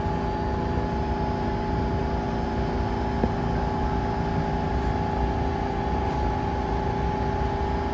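Stationary New York City subway train at the platform, its onboard equipment running with a steady hum: two steady tones over a low rumble.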